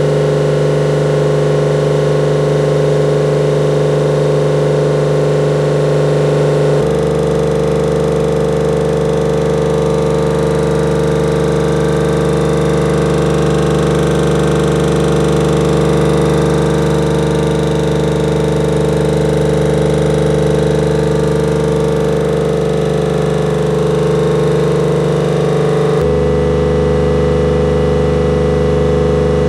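Tanabe H-373 marine air compressor, driven by an electric motor, running steadily under load with its discharge gauge near 3 MPa. The tone changes abruptly about a quarter of the way in and again near the end.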